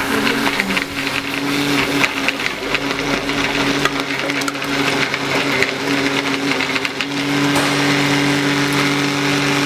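SGR grinder pump running: a steady electric-motor hum with irregular crackling and clicking over it. It grows a little louder and steadier about seven and a half seconds in.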